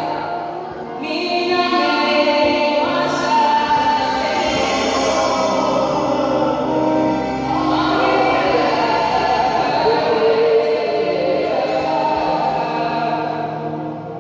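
A woman singing a slow melody into a handheld microphone, with long held notes.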